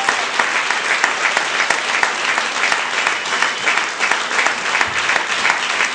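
A theatre audience applauding: many hands clapping in a dense, steady stream.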